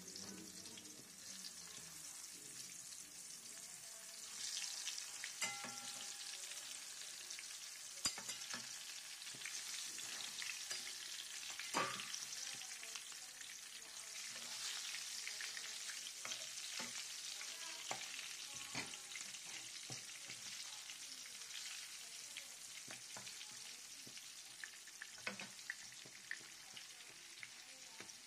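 Aubergine slices shallow-frying in hot oil in a non-stick pan: a steady sizzle with scattered sharp pops and clicks, picking up about four seconds in.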